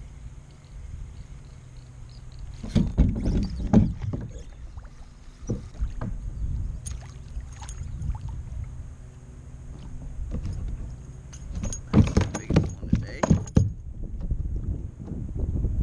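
Kayak on the water while a small bass is reeled in and landed alongside: a steady low rumble of water and wind at the hull-mounted camera, broken by clusters of knocks and rattles about three seconds in and again from about eleven to thirteen and a half seconds in.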